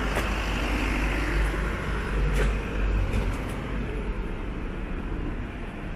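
Outdoor street noise: a steady low rumble like passing traffic, with a few faint clicks.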